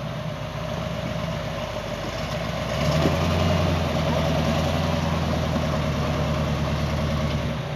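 Off-road 4x4's engine idling, then brought up on the throttle about three seconds in. It holds the higher, louder note steadily and drops back near the end.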